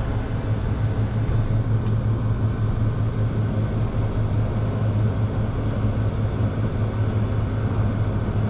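Steady machinery noise with a constant low hum, unchanging in level.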